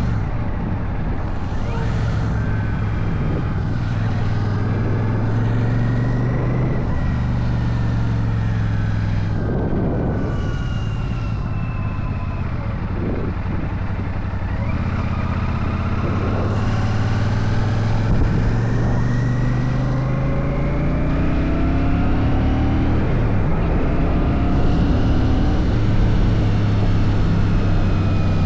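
Royal Enfield Shotgun 650's parallel-twin engine running under way, its note stepping up and down several times over the ride.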